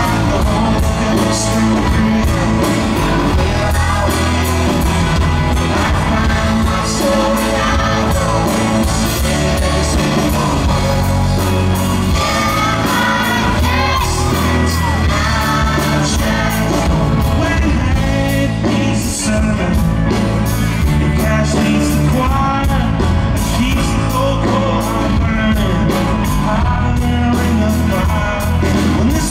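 Live band performing through a PA, with electric and acoustic guitars and bass guitar under voices singing together.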